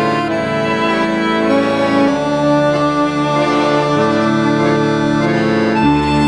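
Accordion music playing slow, sustained chords that change about every two seconds.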